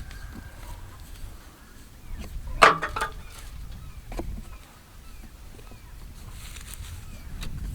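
Knocks and clatter from working a gate hinge pin into a wooden fence post with a makeshift PVC-pipe tool: a quick run of three or four knocks about two and a half seconds in and one more about a second later. Wind rumbles on the microphone throughout.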